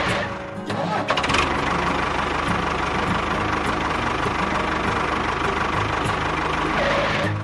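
Mini tractor or bulldozer engine running steadily with a knocking, chugging beat. It briefly drops away about half a second in, then runs on.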